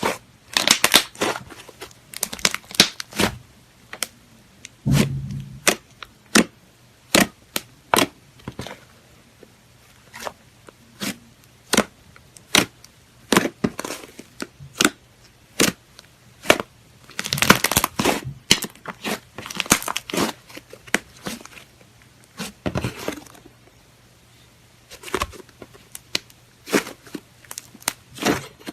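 Slime being squished and pressed, giving irregular sharp pops and crackles, some coming in quick clusters with short pauses between.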